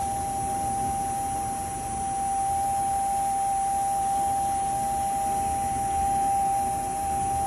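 A steady high-pitched whine, one unwavering tone with a fainter lower tone beneath it, over a low rumble: the constant noise that the recording is marred by.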